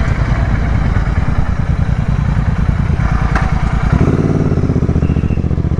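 Royal Enfield Continental GT 650's parallel-twin engine running through a Red Rooster aftermarket exhaust, a loud, deep pulsing exhaust note heard from the rider's seat while riding slowly. About four seconds in, the note settles to a steadier pitch.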